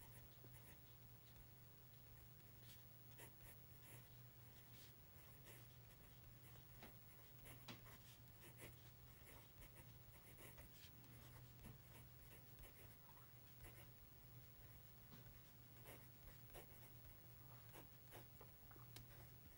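Faint scratching of a TWSBI Vac 700R fountain pen's medium nib writing on notebook paper, in short irregular strokes, over a low steady hum.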